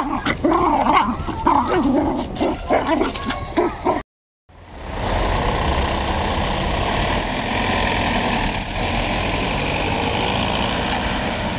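A dog barking and whimpering for about four seconds. After a brief cut it gives way to a steady, even rumble of engine and outdoor noise.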